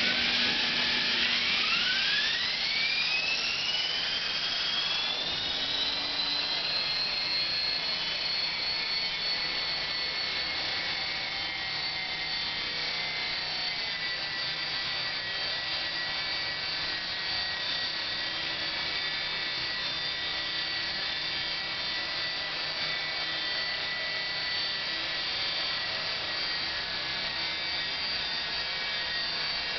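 ESky Belt-CP V2 electric RC helicopter, fitted with a CopterX rotor head and tail, spooling up: the motor and drive whine rises in pitch over the first six seconds or so as the rotor comes up to speed, then holds a steady high whine and rotor buzz as it lifts off and hovers low.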